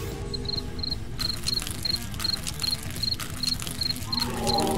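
Cricket chirping in short high-pitched double chirps, about two and a half a second. A falling tone comes in near the end.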